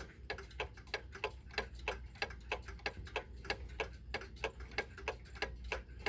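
1915–1925 Ingraham mantel clock's movement ticking steadily at its escapement, about three sharp ticks a second.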